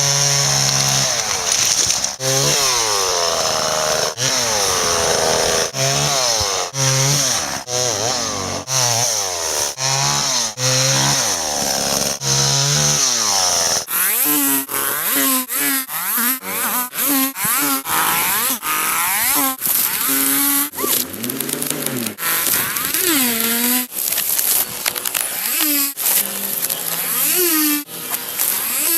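Homelite XL two-stroke chainsaw running and cutting wood, its engine pitch rising and falling as it is revved, in many short pieces that start and stop abruptly.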